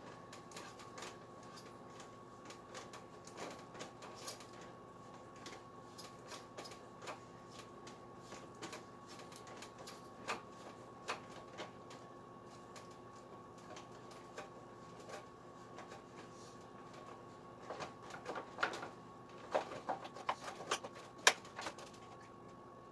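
Scattered small clicks, taps and rattles of hands pulling apart a scooter's wiring harness connectors and plastic dash pieces, getting busier and louder near the end, over a faint steady hum.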